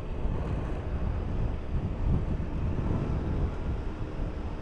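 Honda BeAT 110 cc single-cylinder scooter running steadily while riding along a street, mixed with wind rumble on the microphone.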